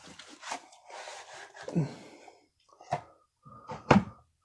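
Hands handling baseball cards and their cardboard packaging: rustling and sliding, with a short tap about three seconds in and a louder sharp knock just before four seconds.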